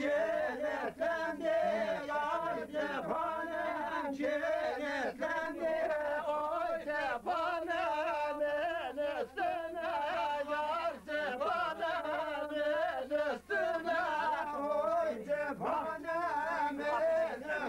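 Men's voices singing together in a chant-like song, with long held notes that waver in pitch.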